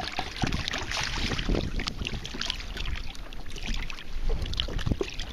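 Hooked fish splashing at the water's surface beside a kayak, in irregular crackling splashes, with wind rumbling on the microphone.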